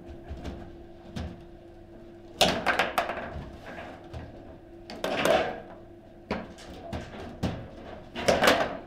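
Table football in play: sharp knocks and clacks of the ball against the plastic players and the table, with the rods rattling, coming in quick clusters about two and a half, five and eight seconds in, with single knocks between them.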